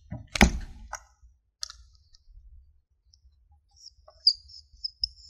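Whiteboard marker on a whiteboard: a few sharp clicks and taps in the first two seconds, the loudest about half a second in. From about four seconds in come short high squeaks as the marker writes a character.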